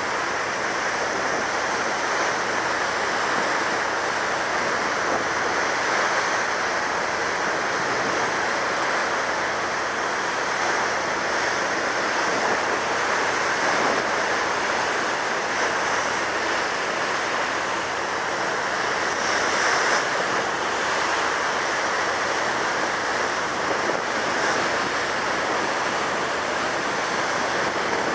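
Steady rushing of wind and water, even and unbroken, with no separate events.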